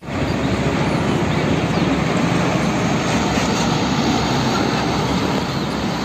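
Heavy fuel tanker truck driving by on the road: a steady rush of engine and road noise.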